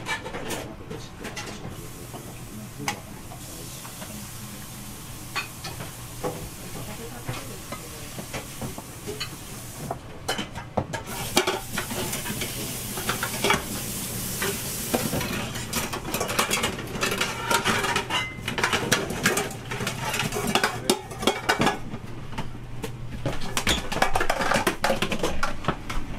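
Metal pots, bowls and utensils clattering and clinking as they are washed at a galley sink, over the hiss of running water; the knocks grow busier in the second half.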